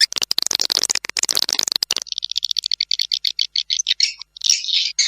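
Swiftlet call-sound recording of the kind swiftlet farmers play to lure birds into a nesting house. It opens with about two seconds of dense, rapid chattering, then a fast run of high clicking chirps, and ends in a short buzzy trill.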